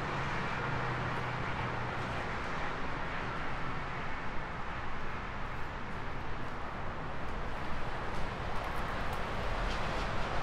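Steady outdoor background noise with a faint low hum that fades out about three seconds in. A few footsteps on pavement come near the end.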